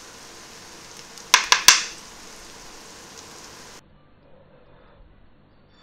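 Chopped onion and garlic sizzling in hot oil in a nonstick wok, a steady hiss. About a second and a half in come three quick sharp knocks, and the sizzle cuts off suddenly a little before the end.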